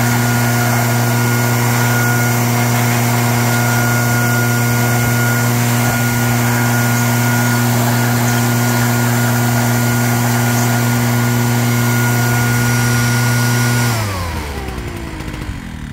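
Petrol-engined leaf blower running at steady full speed. About fourteen seconds in it is switched off, and its pitch falls as it winds down.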